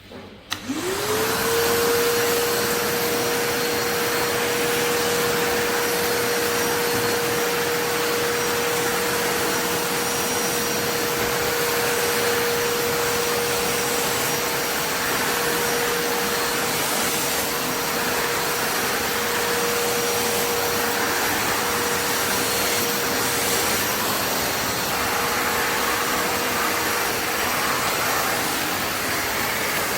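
Kärcher WD 4 S wet/dry vacuum cleaner's 1000 W motor switched on about half a second in. Its whine rises quickly in pitch as it spins up, then it runs steadily with a loud rush of air.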